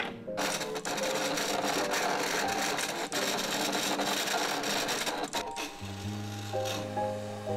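Canon inkjet printer running as it prints a sheet, then a Silhouette cutting machine running its blade carriage and rollers as it cuts a sticker sheet, a dense mechanical running noise with fine ticking. Soft background music underneath takes over near the end.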